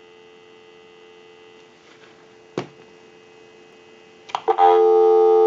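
Telephone dial tone on the payphone's line, a steady two-note hum. It is faint at first, with a single click about two and a half seconds in, then becomes much louder from about four and a half seconds.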